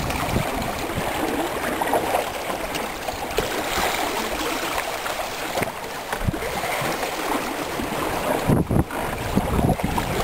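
Water rushing and splashing along the hulls of a 17 ft Windrider trimaran sailing through choppy water.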